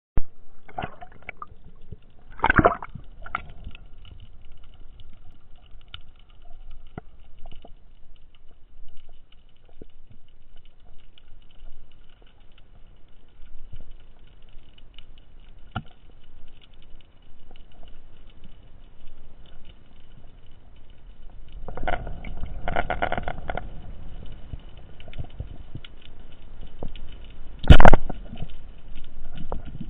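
Underwater sound during a spearfishing dive: faint steady background with scattered clicks and knocks, a louder stretch of gurgling water about three-quarters of the way through, and one loud, sharp crack near the end.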